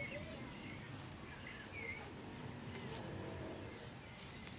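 Quiet garden sound: a few faint bird chirps in the first two seconds, and soft short crackles and rustles from a tabby cat nibbling at the grass.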